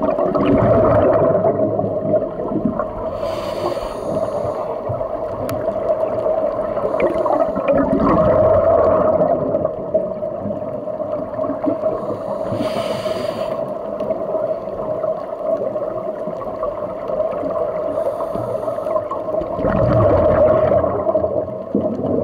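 Scuba diver breathing through a regulator underwater: a bubbly gurgling surge at the start, about eight seconds in and about twenty seconds in, with short hisses between them, over a steady hum.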